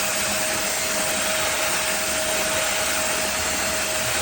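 Corded stick vacuum cleaner running steadily: a loud, even rushing hiss with a steady whine from the motor.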